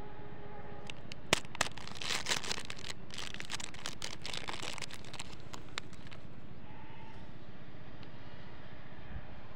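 Plastic lollipop wrapper being torn open and crinkled by hand: two sharp snaps a little over a second in, then a few seconds of crackling that tails off. A steady low background hum runs underneath.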